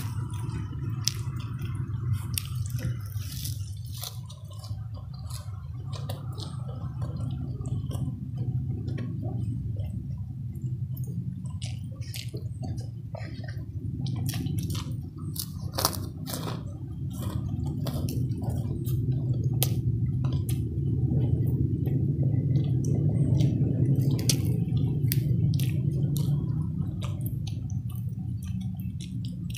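Close-miked wet chewing and lip-smacking of a person eating with their hands, with many short sharp mouth clicks over a steady low rumble that grows louder in the second half.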